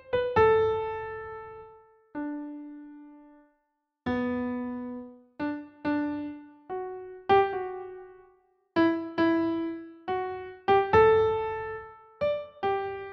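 Slow, sparse piano melody: single notes struck one after another and left to fade, with a couple of brief pauses between phrases.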